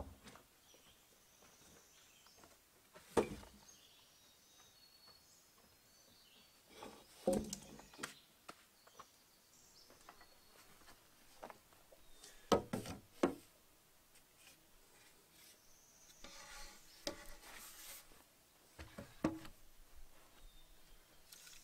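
Spruce logs being handled and set on a wooden sawhorse: four or five separate wooden knocks spread out, with a short stretch of scraping a few seconds before the end.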